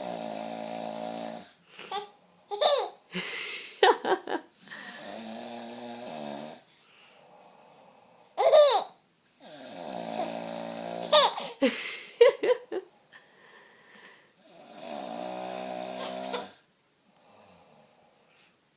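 A man snoring in four long, steady snores a few seconds apart, while a five-month-old baby laughs and squeals in short, high bursts between and over them. The baby's squeals are the loudest sounds.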